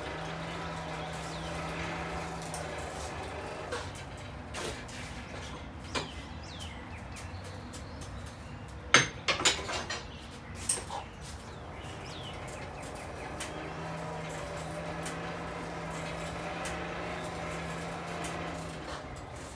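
A coal forge's air blower runs with a steady low hum for about three seconds, stops, and starts again for the last several seconds. In between come a few sharp metal clanks, the loudest cluster about halfway through.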